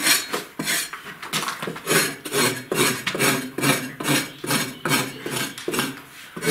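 The blade of a long-handled tool scraping and chopping old plaster off a wall, which has been wetted to keep the dust down. It makes a run of rasping scrapes at about three strokes a second.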